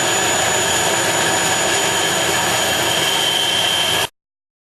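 Band saw running at full speed and cutting through wood stock: a steady whirring hiss with a thin high whine. It cuts off abruptly about four seconds in.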